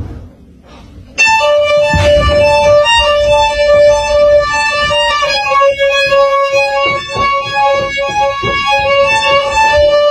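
Instrumental melody of long held notes at steady pitches, changing every second or so, starting about a second in after a brief quiet moment.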